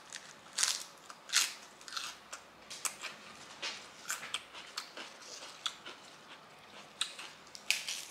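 Crisp raw lettuce leaf being bitten and chewed close to the microphone: irregular wet crunches, one or two a second, with the leaves crackling as they are handled.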